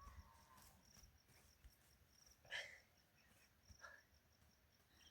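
Near silence with faint insect chirping in short repeated pulses, and one brief, louder sound about halfway through.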